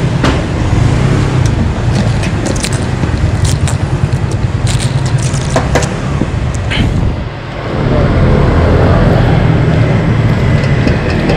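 Steady low street rumble that dips for a moment about seven seconds in, with scattered light clicks and scrapes of tongs and skewers at a street food cart.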